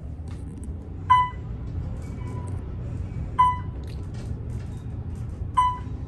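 Otis traction elevator cab descending with a steady low ride rumble. A short electronic beep sounds three times, about every two seconds, once for each floor it passes.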